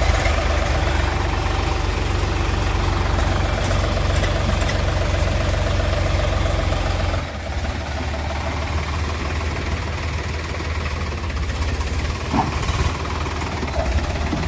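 Heavy diesel engine running steadily, with its low rumble changing about halfway through.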